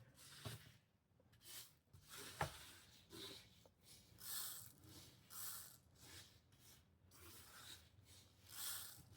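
Faint, soft swishing strokes about once a second as a brush sweeps loose rhinestones across a rhinestone template, with a small click about two and a half seconds in.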